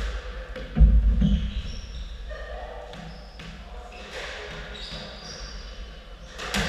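Squash ball and shoes on a wooden squash court in an echoing hall: a heavy ball thump about a second in, short high squeaks of court shoes on the floor, then a sharp racket strike of the serve near the end.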